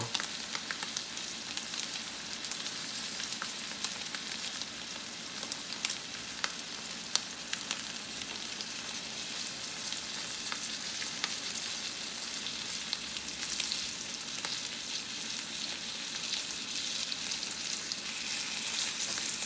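Tomahawk ribeye searing in oil and butter in a hot cast iron skillet: a steady sizzle with scattered crackles and pops, the final sear of a reverse-seared steak.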